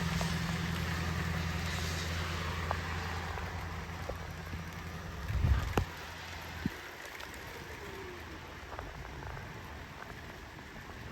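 Steady rushing noise of storm wind and rain with a low rumble. A few heavy thumps come about five and a half seconds in, then a single knock, and after them the rumble stops and it is quieter.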